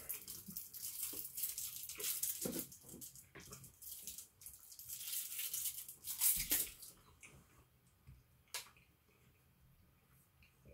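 Close rustling and crinkling of small food packaging at the table, with a louder thump about six seconds in and a single sharp click a little later; much quieter for the last couple of seconds.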